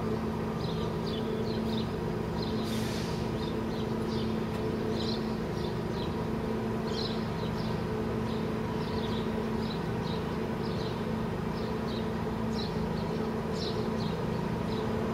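Steady mechanical hum from an unseen machine or engine, with short high chirps scattered through it a few times a second.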